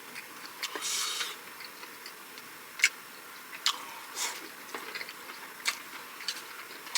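Close-miked eating: chewing on Korean pancakes and namul side dishes, with scattered sharp clicks and a short noisy burst about a second in.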